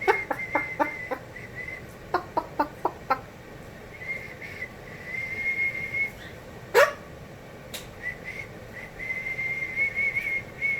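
Cockatoo whistling one long, steady high note, held in stretches with short breaks. A run of short sharp clicks comes near the start and again about two seconds in, and one loud sharp call about seven seconds in.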